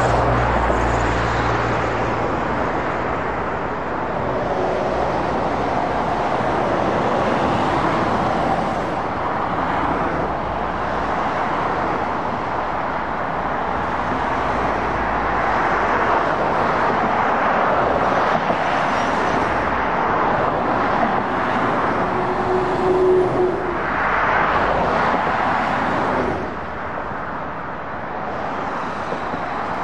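Lorries and cars passing on a dual carriageway: steady tyre and engine noise that swells and eases as each vehicle goes by, with a low diesel engine drone strongest in the first couple of seconds.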